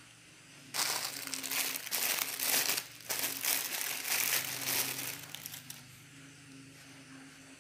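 Clear plastic wrapping crinkling and rustling as it is handled, starting about a second in and stopping about six seconds in, with a brief lull in the middle.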